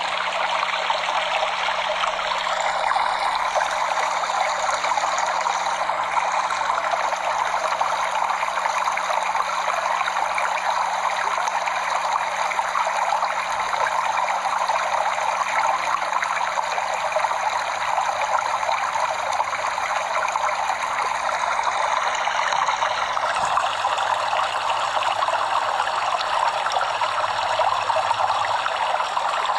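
Stream water flowing and trickling steadily over rocks, an even rushing splash.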